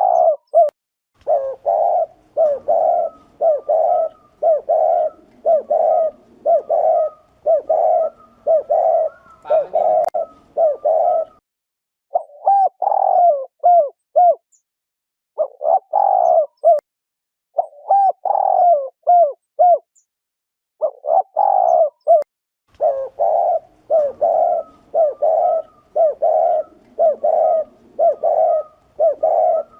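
Spotted dove giving its 'gù' cooing, a run of short, low coos about one to two a second, broken by brief pauses, with slower two-note phrases in the middle. This is the call used to train decoy doves and lure male doves into traps.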